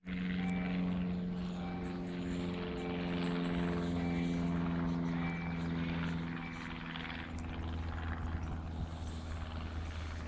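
ET22 electric locomotive hauling a container train, approaching slowly: a steady, pitched electric hum over a low rumble. The hum eases a little past the middle while the low rumble grows.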